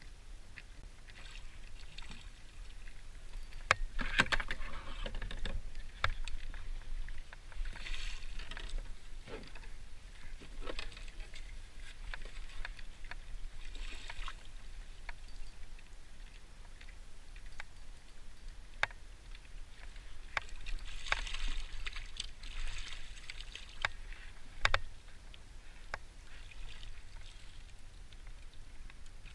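Hooked puppy drum (juvenile redfish) splashing and thrashing at the water's surface beside a kayak, in several bursts, with scattered knocks and clicks of fishing gear against the kayak hull.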